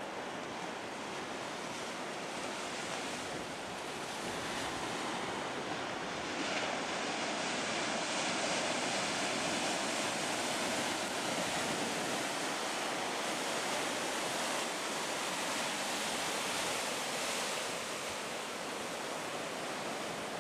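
Storm surf breaking and washing below a pier: a steady rush of whitewater that swells louder for several seconds in the middle, then eases.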